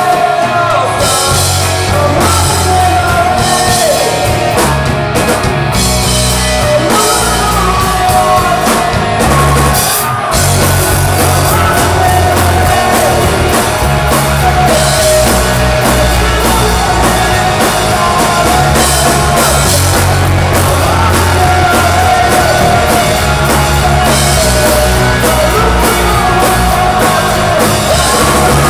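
Live rock band playing: electric guitars, bass and drum kit, with a male singer singing and shouting the lead vocal. The band drops out briefly about ten seconds in before coming back in.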